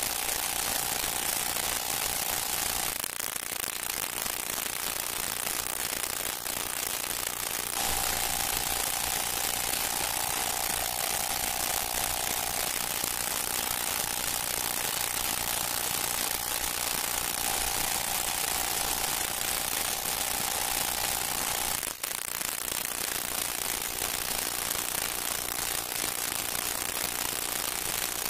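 Dense, steady hiss and crackle: the surface noise of a worn late-1920s sound-film track. A faint held tone under it drops out about three seconds in and comes back some five seconds later.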